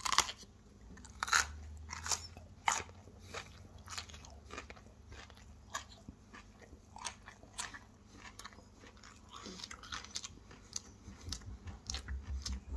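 A person biting and chewing raw broccoli close to the microphone: irregular crisp crunches, the loudest in the first three seconds, then smaller chewing crunches.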